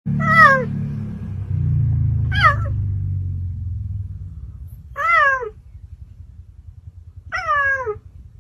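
Cheetah meowing like a house cat: four short, high calls, each rising a little and then falling, a couple of seconds apart. A low rumble runs under the first two calls and fades away.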